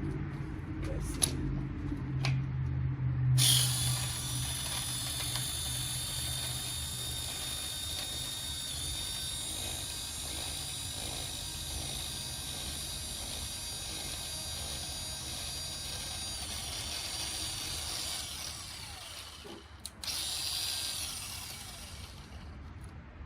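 Power drill running at a steady speed with a high whine, turning over a small lawnmower engine that tends to lock up every few turns. A few clicks come before it starts; the drill stops about twenty seconds in, then runs again for a couple of seconds.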